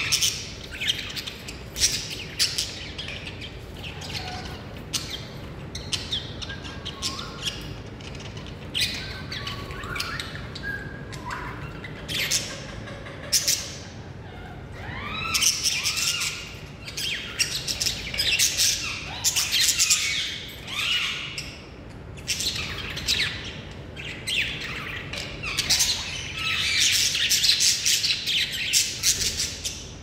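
Pet parakeet calling: a run of short chirps and squawks with rising and falling pitch. The calls come thickest in two long spells of chatter, one in the middle and one near the end.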